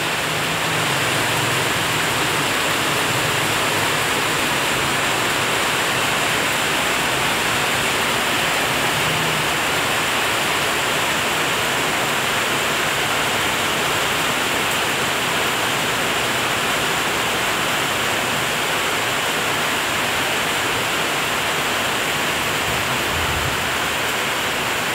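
Steady rain falling, a constant even hiss with no let-up.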